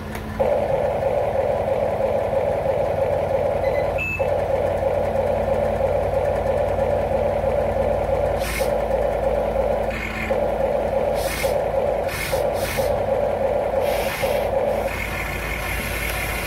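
An RC excavator's built-in sound module plays a simulated engine sound through its small speaker, starting about half a second after the model is switched on and holding steady. In the second half, short noisy bursts break in several times, and near the end the sound changes to a higher-pitched pattern.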